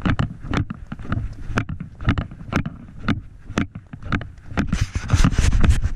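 Footsteps on wooden wharf planks, about two steps a second, each a sharp knock, over a low rumble of wind and movement on a chest-mounted microphone. Near the end the rubbing and wind noise grows louder.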